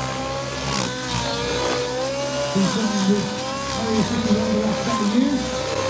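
Large RC helicopters in flight: a steady rotor and motor whine whose pitch keeps bending up and down as they manoeuvre.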